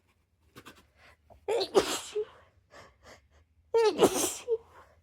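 Two sneezes from a person with a head cold, about two seconds apart, each a voiced build-up breaking into a sharp burst, with quiet breaths between.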